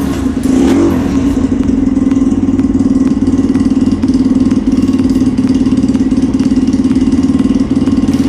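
A 150 cc pit bike's single-cylinder engine running through a silencer with no packing (open exhaust). It revs briefly about half a second in, drops back, then idles with a fast, even pulse. Very loud, because the muffler is empty.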